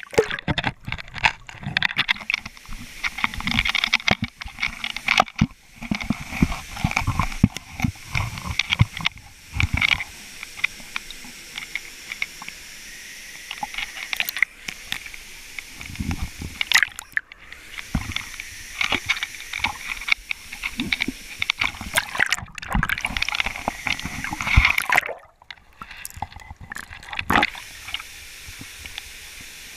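Irregular scraping, knocking and water sloshing as a person crawls on hands and knees through a wet dam outlet tunnel.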